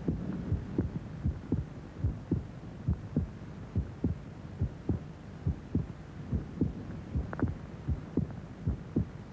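Heartbeat sound effect: a steady run of low thumps, about two and a half a second, over a low hum.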